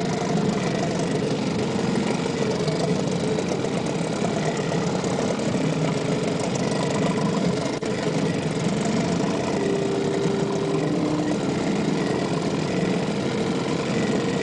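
Boat engine running steadily at low speed, a constant mechanical drone.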